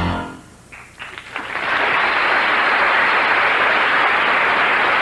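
Studio audience applause: after the theme song's last sung note ends at the start, there is a short lull with a few scattered claps, then full applause swells up about a second and a half in and holds steady.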